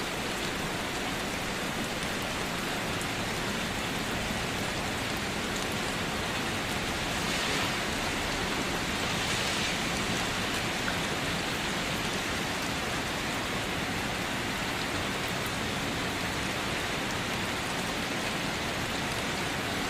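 Steady rain falling, an even hiss of many drops that swells slightly for a few seconds about a third of the way through.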